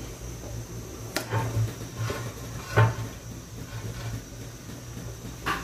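Metal cookware knocking and clanking on a glass cooktop as a pot is moved off and an aluminium frying pan set down: a handful of short knocks, the loudest a little under three seconds in, another near the end. A steady low hum runs underneath.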